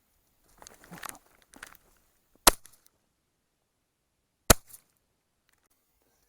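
Two shotgun shots from a TOZ-34 double-barrelled shotgun, about two seconds apart, fired at a hare. Each is a single sharp crack. Brief soft rustling comes before them.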